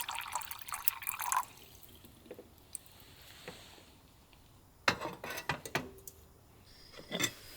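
Water poured into a cooking pot to be boiled, with splashing in the first second or so. Then come a few sharp clicks and knocks of cookware being handled, in a cluster about five seconds in and once more near the end.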